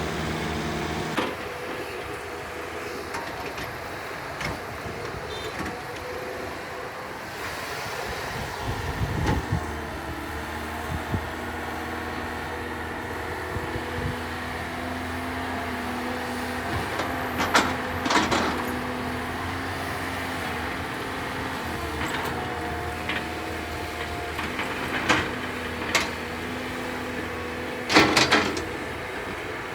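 Sumitomo S265EA hydraulic excavator's diesel engine running steadily under working load, its pitch shifting now and then. A few sharp knocks break through: two close together past the halfway point and a loud one near the end.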